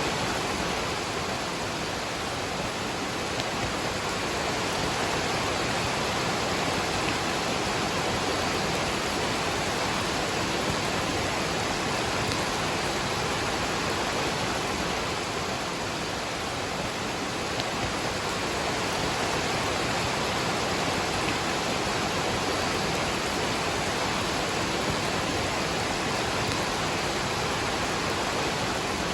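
Waterfall with rain falling, a steady, unbroken rush of water.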